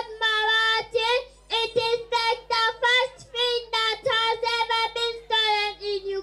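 A young girl singing into a microphone in short, mostly held phrases with brief breaks between them.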